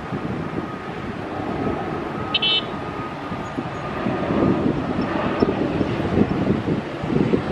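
ATR 72 twin-turboprop airliner climbing out after takeoff, its engines and propellers droning with a faint steady whine, growing louder from about halfway through as it comes overhead.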